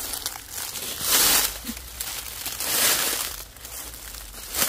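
Footsteps crunching and rustling through dry fallen leaves, with three louder crunches about a second and a half apart.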